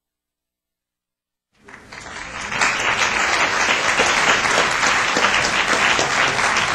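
Silence, then an audience applauding from about one and a half seconds in, the clapping building over a second and then holding steady.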